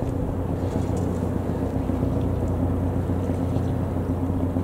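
Steady low hum of a large engine running at an even idle.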